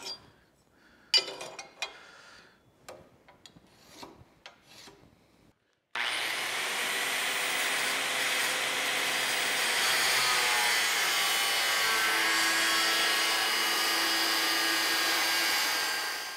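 Light scratching and taps as cut lines are marked on a steel flat bar against a speed square. About six seconds in, an angle grinder with an abrasive cutoff wheel starts abruptly and cuts through the steel with a steady high whine and grinding noise, then winds down near the end.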